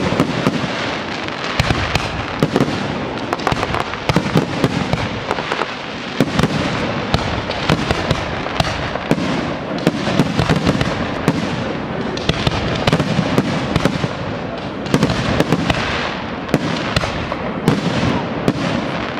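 Aerial firework shells bursting in quick, overlapping succession: many sharp bangs a second over a dense, continuous hiss of crackling stars.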